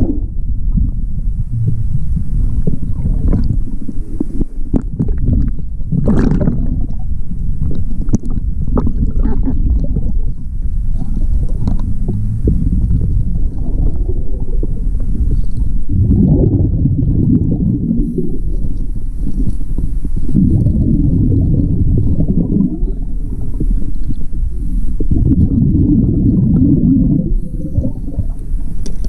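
A scuba diver breathing through a regulator, heard underwater: low rumbling, gurgling surges of exhaled bubbles every few seconds, loudest in the second half. There are scattered clicks and knocks in the first half.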